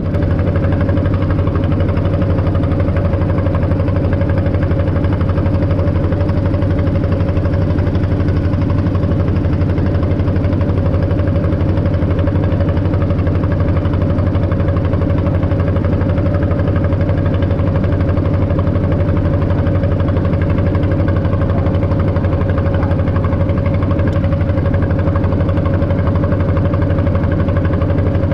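A boat's inboard engine running steadily under way at a constant speed, an even, unchanging drone.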